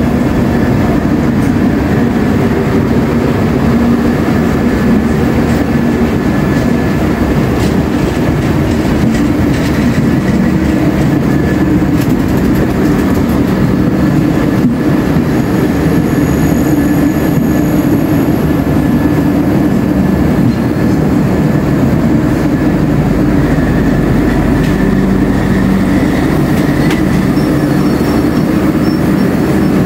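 Duronto Express passenger coaches rolling slowly past close by, a loud steady rumble of wheels on rail with a thin high-pitched wheel squeal running through it.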